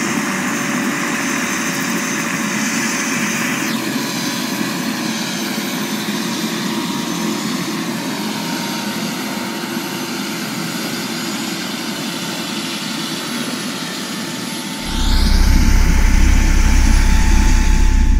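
Two Aérospatiale AS 350 Écureuil helicopters running on the ground with rotors turning: a steady turbine whine over rotor noise, with a high whine dropping in pitch about four seconds in. About three seconds before the end, a rising whoosh and a deep rumble from an editing transition take over.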